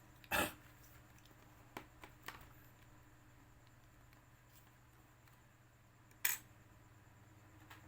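Clicks and taps of small hard parts being handled during a laptop RAM swap: two sharp clicks about six seconds apart, with a few fainter ticks around two seconds in, over a faint steady hum.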